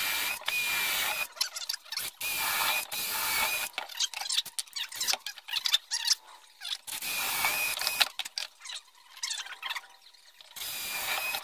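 Cordless drill with a Forstner bit boring through a particle-board seat into the wood beneath, in several short runs with a steady motor whine. Clicks and knocks of handling fall between the runs.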